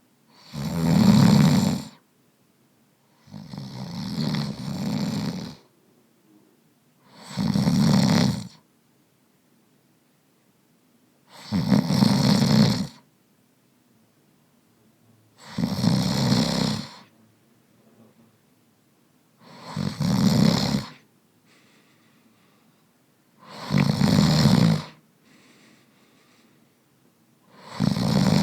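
A man snoring steadily, one snore about every four seconds with quiet breaths between. The second snore is longer and softer than the others.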